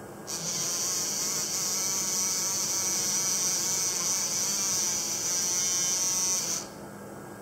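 Dentsply EndoActivator sonic handpiece buzzing steadily with its tip in water. It switches on just after the start and stops suddenly about six seconds later, a high buzz whose pitch wavers slightly.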